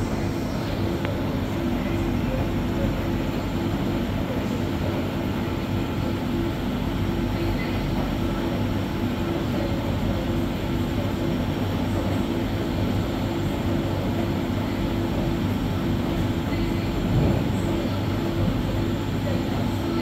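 Electrolux Professional WN6-14 commercial front-loading washing machine turning its drum in the rinse cycle, with the wet load tumbling: a steady mechanical hum.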